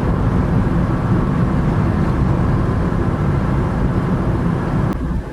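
Car driving, with steady engine and tyre noise heard from inside the cabin. A single click near the end.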